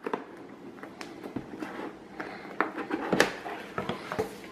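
A cardboard box being handled and its lid lifted open: faint rubbing and light taps of cardboard, with one sharper knock about three seconds in.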